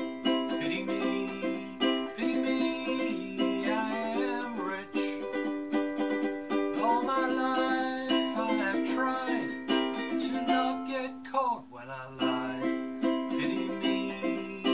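Ukulele strummed in a steady song accompaniment, with a wordless sung melody gliding over it through the middle.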